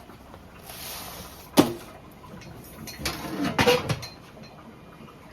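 A short hiss, then one sharp knock about one and a half seconds in, followed by a brief run of clattering knocks and clicks about three to four seconds in.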